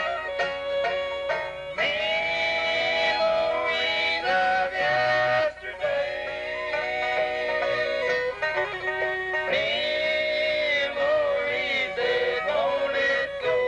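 Bluegrass band playing live on banjo, guitar, mandolin, fiddle and upright bass, with long held melody notes over the picking.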